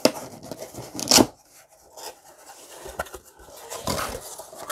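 Packing tape on a small cardboard shipping box being torn open, with a short loud rip about a second in, then softer scraping and rustling as the cardboard flaps are pulled back.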